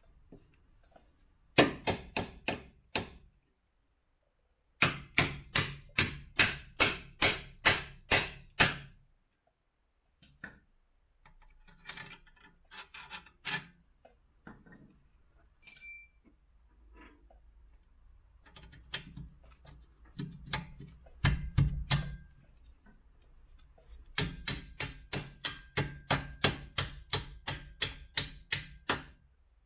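Hammer blows on metal in quick runs, about three to four a second, some ringing with a high metallic tone, with short pauses between the runs.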